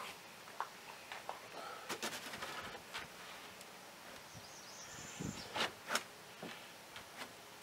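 Plywood transom board knocking and scraping against a fiberglass boat hull as it is eased down into the transom cut-out for a test fit: scattered light knocks, with a dull thump and two sharper knocks about five and a half to six seconds in.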